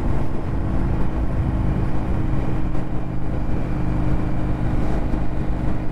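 Indian FTR 1200's V-twin engine running at a steady cruise, heard from the rider's position, with a constant rush of wind and road noise. The engine pitch holds level, with no revving or gear change.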